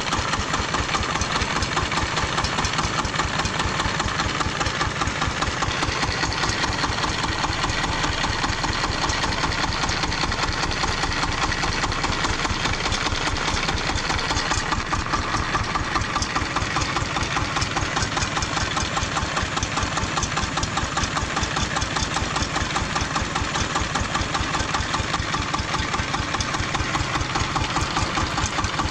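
A homemade tractor's engine idling steadily, with an even, rapid chugging beat that holds the same pace throughout.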